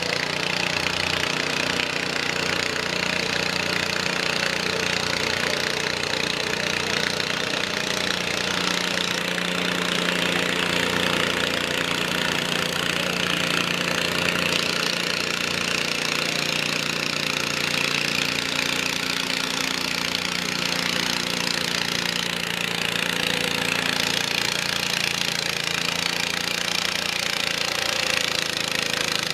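Garden pulling tractor's engine running hard and steady under load as it drags the weight-transfer sled down the dirt track.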